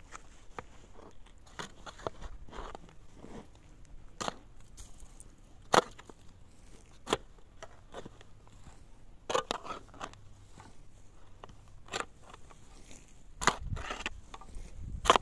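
Metal shovel digging into dry, stony soil: irregular crunching scrapes and knocks as the blade is driven in and earth is lifted, the sharpest two strikes about a second apart a little before the middle.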